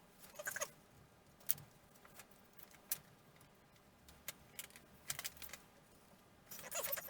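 Scattered light clicks and taps, with a busier rustle near the end: small wooden model-aircraft parts being handled and fitted together by hand.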